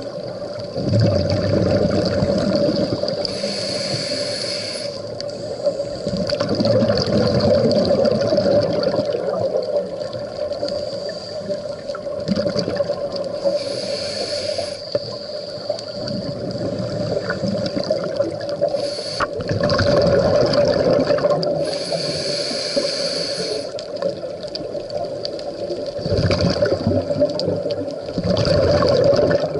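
Scuba regulator breathing, heard underwater: a hissing inhale every several seconds followed by a longer low rush of exhaled bubbles, over a steady hum.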